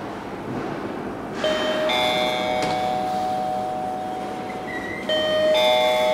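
Two-note ding-dong arrival chime of a KONE elevator, rung twice: once about a second and a half in, and again about five seconds in, each note ringing on and fading.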